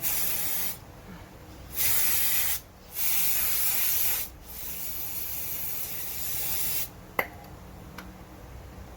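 Aerosol spray can hissing in four bursts, the last one longer and softer, followed by a single sharp click.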